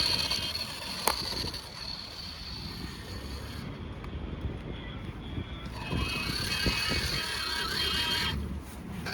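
Toy remote-control monster truck's electric motor whining as it drives, dropping away for a couple of seconds midway and then picking up again, over a low rumble. A single sharp click about a second in.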